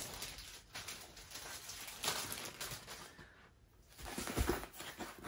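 Paper rustling as a rolled diamond-painting canvas in its paper wrapping is unrolled by hand on a table, going quiet for a moment around the middle, then rustling again with a couple of soft bumps.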